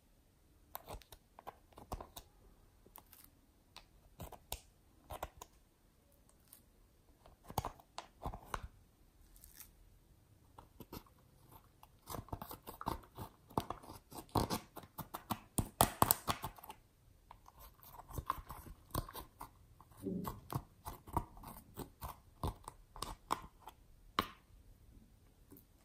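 Plastic spatula scraping and tapping in a makeup palette, crumbling pressed eyeshadow with small scratchy, crackly strokes. The strokes come in a louder, quicker run around the middle.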